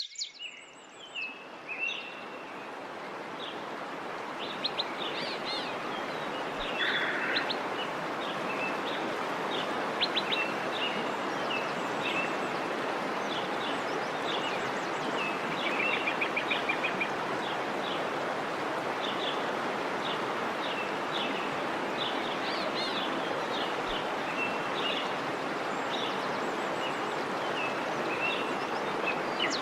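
Small birds chirping and calling repeatedly over a steady rushing background noise that fades in over the first few seconds.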